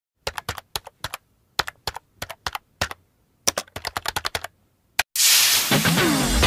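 Computer keyboard typing sound effect: sharp clicks in quick, irregular runs of keystrokes. About five seconds in, music starts abruptly and is louder than the typing.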